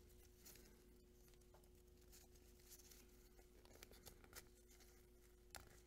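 Near silence: a few faint clicks and rubs of gloved hands working a rubber O-ring into the groove of an oil filter housing cover, over a faint steady hum.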